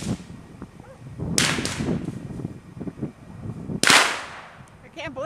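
Burning Christmas tree crackling, with two loud sharp bangs, about a second and a half in and again near four seconds, from fireworks caught in the fire going off.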